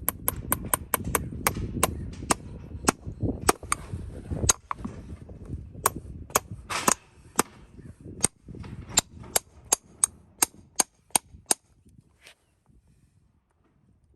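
A farrier's hammer striking steel in a quick series, about two to three sharp ringing blows a second. It stops a couple of seconds before the end.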